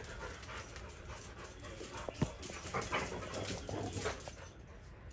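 Two dogs play-wrestling, panting and making short dog noises in an irregular run of bursts, with a sharp click about two seconds in.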